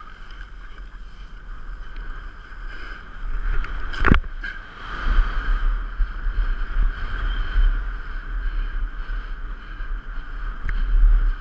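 Wind rush and the scrape of edges sliding over packed snow, picked up by a GoPro HERO3 in its housing during a downhill run. It grows louder about three seconds in, with one sharp knock about four seconds in.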